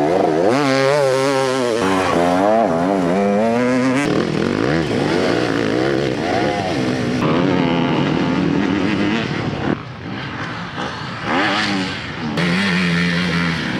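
Off-road racing motorcycle engines revving hard as several bikes pass one after another, the pitch rising and dropping rapidly with the throttle and gear changes.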